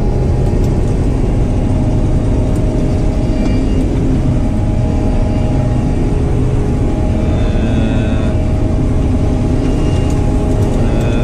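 Claas combine harvester running steadily while cutting wheat, heard from inside the cab: a constant engine and machinery drone with several steady tones in it.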